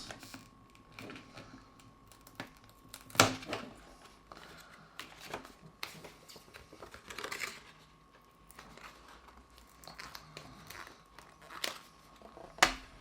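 Cardboard J-card being worked off a steelbook case by hand: scattered rustling and crinkling of card and packaging, with a few sharp taps, the loudest about three seconds in and another near the end.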